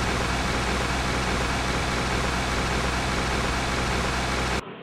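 Salon hood hair dryers running: a steady, even rush of blown air that cuts off suddenly near the end.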